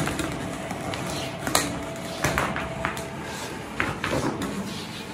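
Flexible vacuum hose of a carpet-cleaning machine being handled and laid out, with irregular knocks, taps and rattles as the hose is moved.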